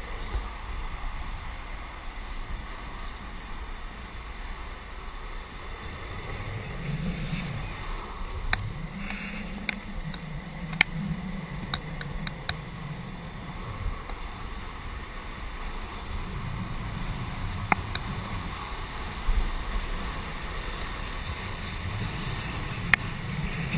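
Longboard wheels rolling fast down an asphalt road, with wind rushing over the microphone and swelling at times, and a few sharp clicks from the board.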